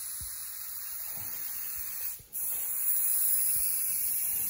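Airbrush hissing steadily as it sprays paint. It cuts out briefly about two seconds in and then comes back a little louder.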